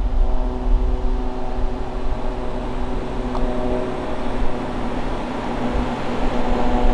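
Car running at a steady pace: a constant engine hum over a low, fluctuating road and wind rumble.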